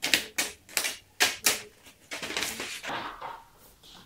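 Sheet of skateboard grip tape handled and its backing paper peeled off: a quick series of sharp crackles and snaps, then a longer, rougher crackling stretch that fades out.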